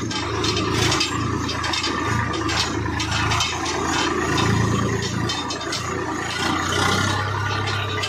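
Diesel tractor engine running with a steady low drone, heard from the driver's seat, over a constant clatter and rattle of loose metal parts.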